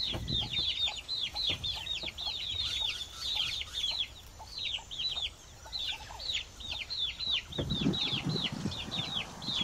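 Domestic chicks peeping without pause: many short, high calls that slide downward, several a second. Lower, rougher sounds join in near the end.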